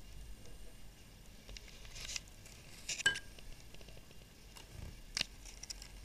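Small plastic toy pieces handled and fitted together on a hard tabletop: a few light clicks and taps, the sharpest about three seconds in and another just after five seconds.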